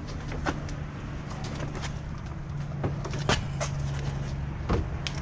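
A vehicle engine idling with a steady low hum, with several sharp clunks and knocks from handling.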